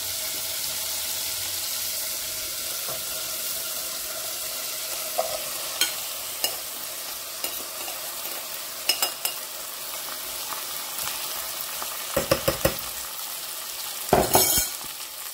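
Onions frying in a pot of hot oil, sizzling steadily. After about five seconds spice-coated okra is scraped from a bowl into the pot with a spatula, with scattered clicks and knocks; the loudest knocks come near the end.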